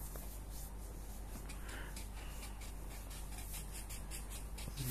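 Felt-tip marker scribbling on paper in short, quick repeated strokes, about two or three a second.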